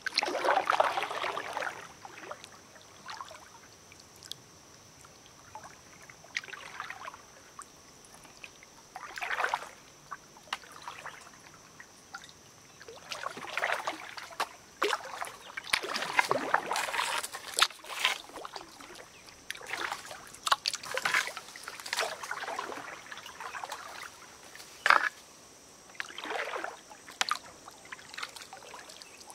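Kayak paddle strokes in creek water: irregular swishes and splashes every second or two, with water trickling and dripping off the paddle blades between strokes.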